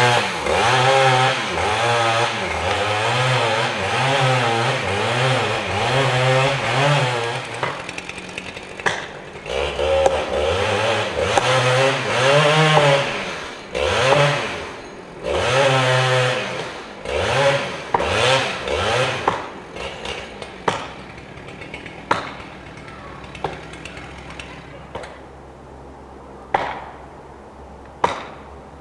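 Chainsaw cutting into the trunk of a large red fir snag being felled, its engine revving up and down under load, then running in shorter on-and-off bursts. Over the last several seconds the saw falls quiet and a few sharp single knocks ring out.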